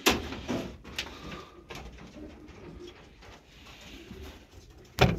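Domestic pigeons cooing softly. A sharp knock comes right at the start, and a louder knock about five seconds in.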